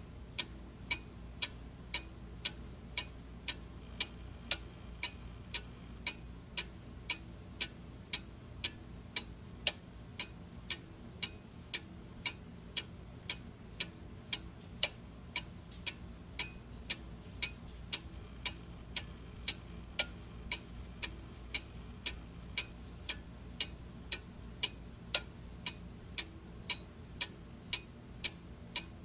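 Clock ticking steadily and evenly, about two ticks a second, over a faint low hum.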